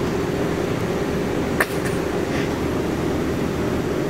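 Steady drone of a car in motion, heard from inside the cabin, with a single sharp click about a second and a half in.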